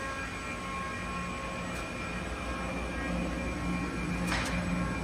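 Powered-up CNC lathe running with its spindle at rest: a steady machine hum with several thin whining tones, getting slightly louder partway through. There are a couple of brief clicks near the end.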